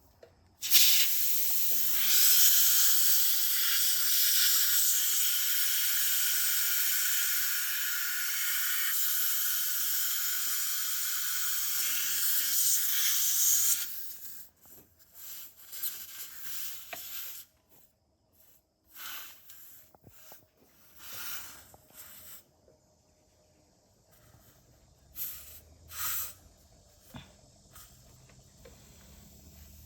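Compressed air hissing steadily out of a car tire's nail hole after the nail is pulled, starting suddenly about a second in and cutting off abruptly about fourteen seconds in. Short, broken spurts of hiss follow as the hole is worked on.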